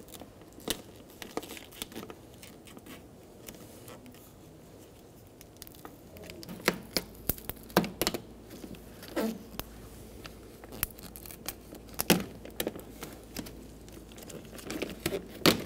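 Plastic vapor barrier sheet being peeled away from sticky butyl tape on a car door: soft crinkling and tearing with scattered sharp crackles, busier from about six seconds in.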